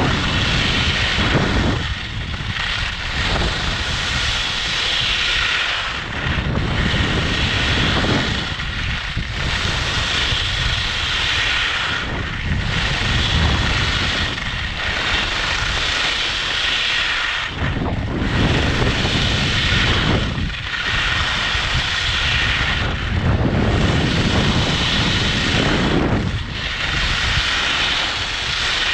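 Skis carving turns down a freshly groomed piste, the edges hissing on the snow while wind rushes over the action camera's microphone. The sound rises and falls about every three seconds, once per turn.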